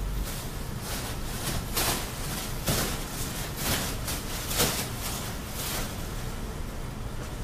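A plastic garbage bag rustling and swishing as it is swung about, a run of irregular sharp crackles that fade out near the end, over a low steady hum.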